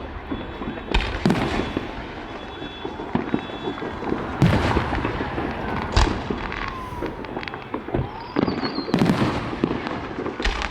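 Fireworks show: a run of aerial shell bursts, sharp bangs every second or two with rumbling echoes between them and a few whistling glides from rising shells.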